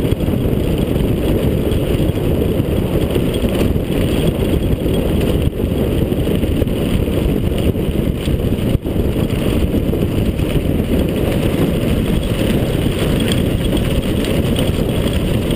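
Steady low rumble of wind buffeting the microphone of a camera on a mountain bike riding fast, mixed with the bike rolling and rattling over a stony, cobbled track.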